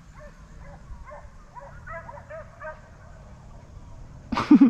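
Deer hounds baying faintly: a run of short, repeated cries as the pack trails a deer. Near the end a loud voice cuts in.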